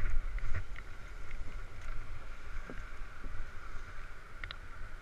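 Wind rumbling on the microphone over a steady rushing noise, with a few light knocks and clicks as an inflatable raft and paddles are handled and carried.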